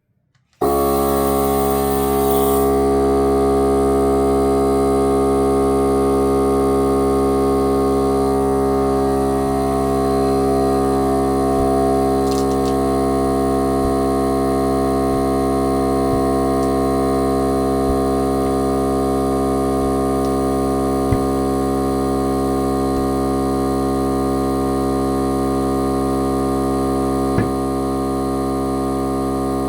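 Milwaukee air compressor switching on suddenly about half a second in and running steadily with an even, humming drone, pumping air into a tire to seat its bead on a bead lock wheel. Two small clicks come in the second half.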